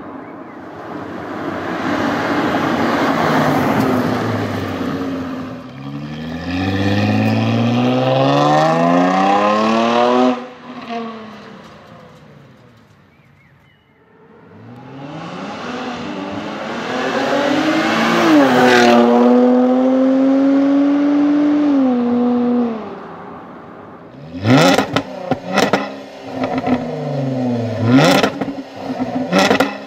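2015 Jaguar XE S's supercharged 3.0-litre V6 at full throttle: two hard acceleration runs, the exhaust note climbing steadily in pitch and cutting off sharply at the top of each. Near the end come several quick free-revs, each rising and falling fast.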